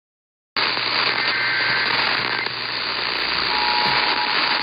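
AM radio static cuts in about half a second in, with a faint pair of higher tones briefly, the tail of the EAS digital header. About three and a half seconds in, the Emergency Alert System two-tone attention signal (853 and 960 Hz) starts and holds steady over the hiss.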